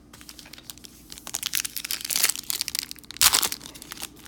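Trading card pack wrapper being crinkled and torn open: a run of crackling, with a louder crackle about three seconds in.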